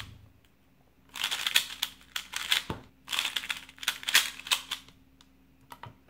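QiYi Valk 3 speed cube turned at full speed while drilling algorithms: rapid plastic clicking and clacking of the layers. After a short lull it runs from about a second in to about five seconds in, with a couple of brief breaks and one low knock partway through.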